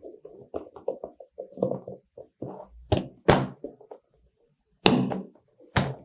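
A 16x2 LCD module being pressed into a plastic solderless breadboard: a run of light taps and scrapes, then several sharp knocks in the second half as it is pushed down onto the board.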